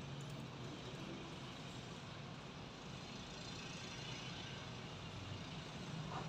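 A steady low hum under faint background noise, with no distinct events.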